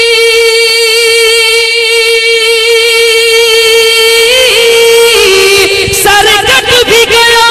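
Unaccompanied naat singing: a single voice holds one long high note, then breaks into a wavering, ornamented run about four seconds in, with a few short sharp clicks near the end.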